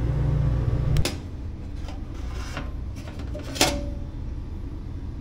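A few sharp knocks and clicks of kitchenware being handled, the one about three and a half seconds in ringing briefly, over a steady low hum that drops off abruptly about a second in.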